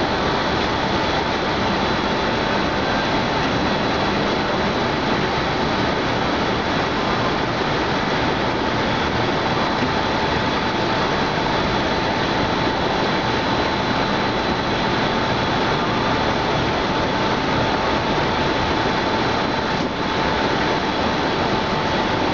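Industrial exhaust blower pushing oil smoke through the electrostatic precipitator's duct: a steady rushing of air with a steady whine over it.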